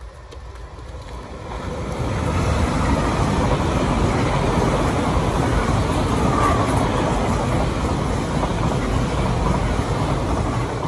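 GWR Class 802 bi-mode train, two units coupled, passing close on diesel power. The rush of wheels on rail and underfloor engines builds over about the first two seconds, then holds steady and loud as the carriages go by.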